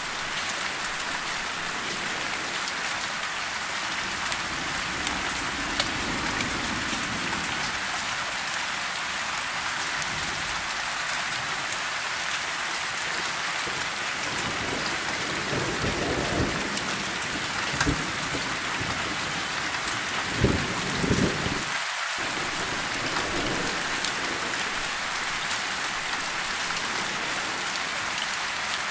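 Steady rain falling, an even hiss throughout, with a few brief low rumbles of thunder around the middle and again about two-thirds of the way in.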